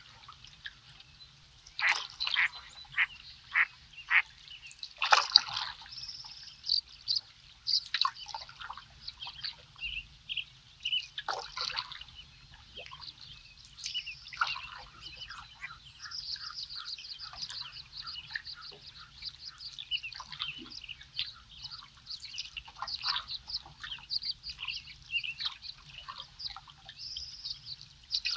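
Wetland birds calling and singing: a dense run of short high chirps and trills, with several louder, sharper calls a few seconds in.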